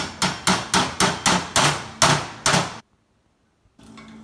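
Metal utensil clanking against a cooking pot in quick, even strikes, about four a second, as the pot is stirred hard to dissolve beef base into the water. The clanking stops abruptly about three seconds in.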